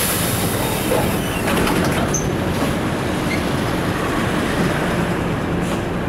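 Mitsubishi city bus under way, heard from inside its cabin with the windows open: a steady run of engine and road noise, with scattered clicks and rattles from the bodywork.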